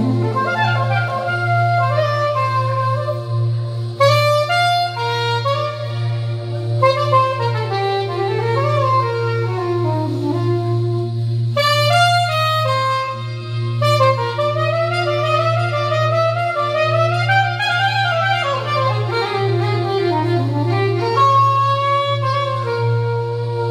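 Curved soprano saxophone, miked at the bell, playing a solo melody of rising and falling phrases with quick runs, over a steady low tone underneath.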